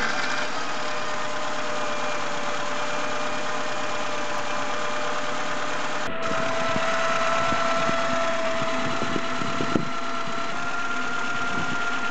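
VAZ-2107 engine idling with a steady whine from a worn bearing, which a stethoscope later traces to the alternator rather than the water pump. The whine breaks off briefly about six seconds in and comes back slightly higher.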